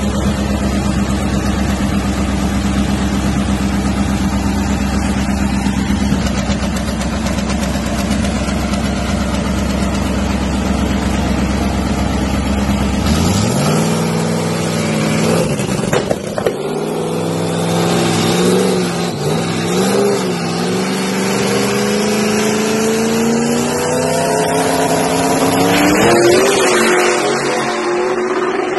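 Dragster engine running steadily at a constant pitch, then from about halfway its pitch climbs, dips and climbs again over more than ten seconds as it is revved up at the start line.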